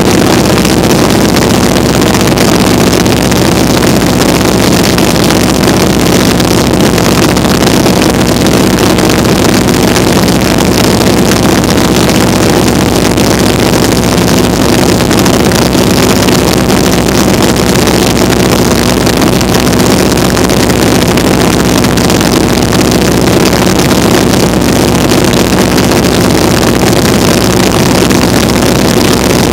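Vintage biplane's radial engine and propeller running steadily in level cruise flight, a loud, even drone with no change in pitch, mixed with wind rushing over the open cockpit.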